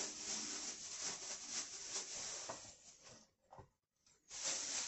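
Rustling and crinkling of plastic film as a chilled piece of dough is handled and unwrapped, with small handling clicks; the sound drops out for about a second past the middle.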